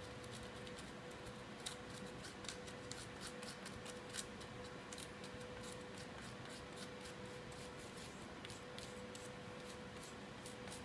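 Toothbrush bristles scrubbing grease into the metal slide rails of a KSC Glock 19 airsoft pistol: faint, quick scratching strokes, irregular and many.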